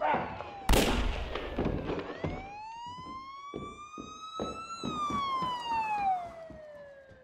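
A loud bang about a second in, among scattered thumps, then a police siren wail that rises slowly and falls away over several seconds.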